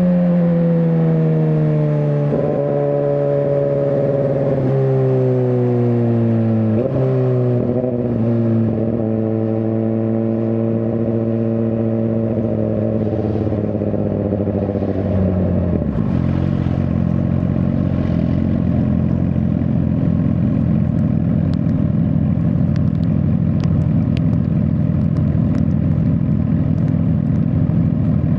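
Suzuki GSX-R1000R inline-four engine slowing down, its note falling in several steps through gear changes. About halfway through it settles into a steady low idle.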